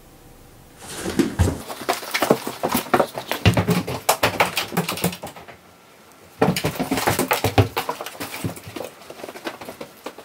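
Loud open-mouth chewing: rapid, wet lip-smacking and mouth clicks in two long spells with a short pause between, about five seconds in.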